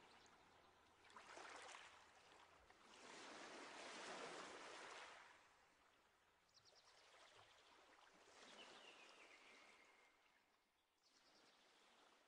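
Faint nature ambience: water washing in slow swells, with a few bird chirps and short trills.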